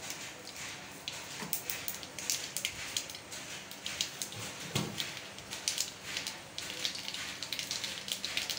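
A small amount of cooking fat heating in an aluminium kadai, crackling with irregular sharp pops.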